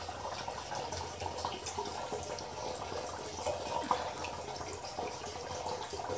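Zen-stones two-tier fountain with its small electric pump circulating water: a steady splashing trickle with small drips. The reservoir is only about a third full, just enough for the pump to reach.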